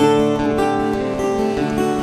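Background music: strummed acoustic guitar playing sustained chords, with a new chord struck at the very start.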